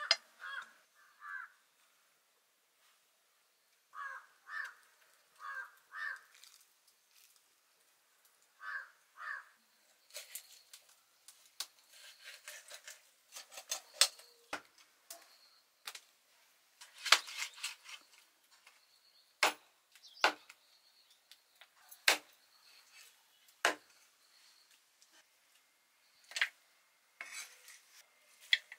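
Food preparation: irregular sharp knocks and clinks of a knife and utensils on wood and metalware, coming thick from about ten seconds in. Before that, a few short calls come two at a time.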